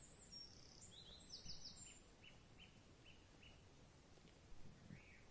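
Faint bird chirps over a quiet low hiss: a few short high calls, then a run of short notes at about two or three a second.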